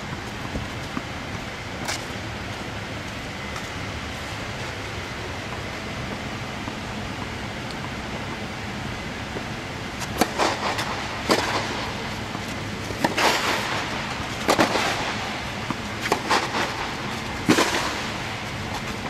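Tennis serve and rally: after a steady background hiss, sharp racket strikes on the ball and ball bounces come about every second and a half, starting about ten seconds in.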